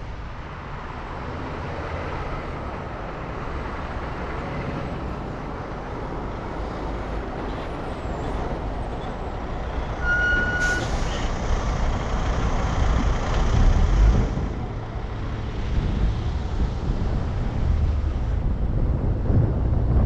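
2004 Ford Focus being driven: steady engine and road noise with a low rumble, growing louder after a sharp click about halfway through.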